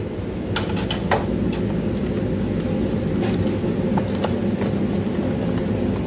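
Steady low hum of restaurant kitchen machinery, with scattered sharp clicks and taps as a cardboard fried-chicken box is handled and its lid folded shut, several in the first second and a half and a few more around the middle.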